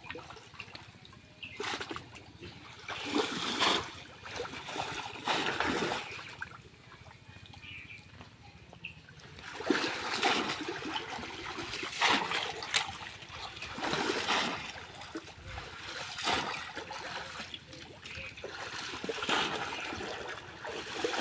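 Shallow pond water splashing and sloshing as a person wading works it with hands and a bamboo polo fish trap, in irregular splashes every second or two.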